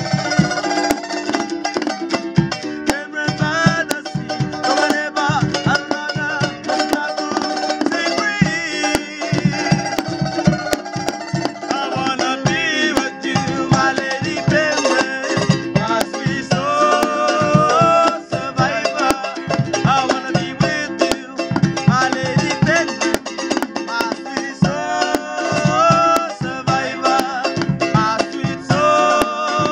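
Men singing a Cook Islands song in full voice over fast-strummed ukuleles, with a small drum keeping a steady beat underneath.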